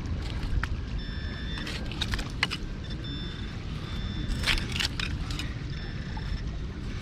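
Steady low rumble of wind on the microphone, with scattered sharp clicks and scrapes and a few brief, thin, high steady tones.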